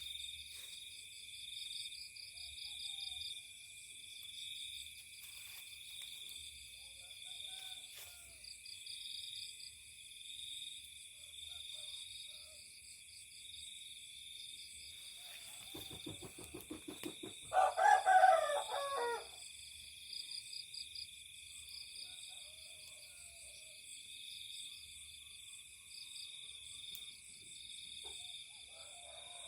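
Steady high-pitched chirping throughout, with one loud animal call lasting about two seconds a little past the middle, just after a short low fluttering pulse.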